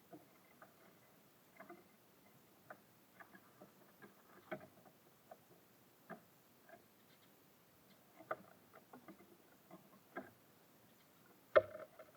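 Small birds at a feeder: irregular light taps and clicks of beaks and feet on the feeder as they peck seed, with one sharper knock near the end.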